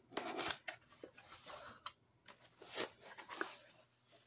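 Cardboard package being opened by hand: a series of short, irregular rustles and scrapes of cardboard and paper.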